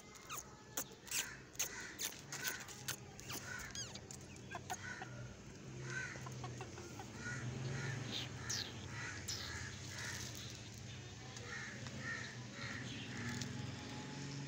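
White chickens clucking in short repeated calls as they feed on food scattered on a concrete floor. There are sharp taps in the first few seconds, and a low steady hum underneath from about five seconds in.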